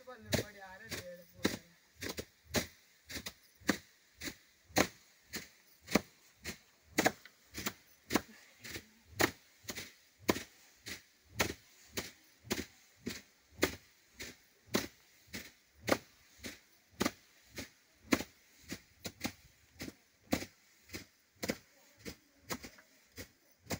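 Long wooden threshing sticks beating down on a layer of grain straw: sharp thwacks about two to three a second, slightly uneven as several people strike in turn, hand-threshing the grain.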